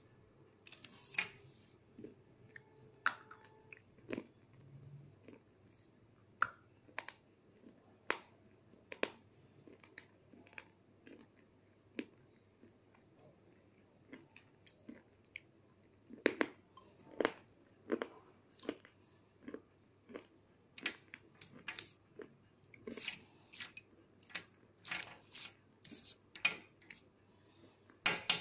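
Bombay-brand slate pencils being bitten and chewed: sharp, brittle crunches at irregular intervals, coming thicker and louder in the second half.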